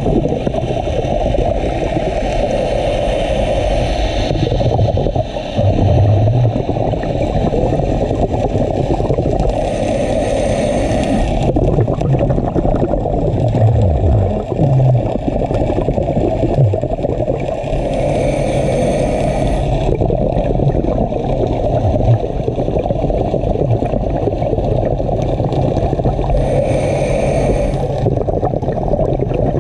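Scuba diving heard underwater: a steady low rumble with bursts of regulator exhaust bubbles hissing and gurgling about every eight seconds, each lasting a couple of seconds.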